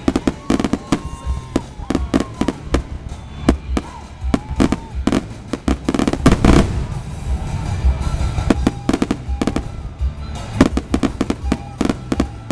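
Fireworks display in full barrage: aerial shells bursting in rapid succession, a constant run of sharp bangs and crackle, densest about six seconds in.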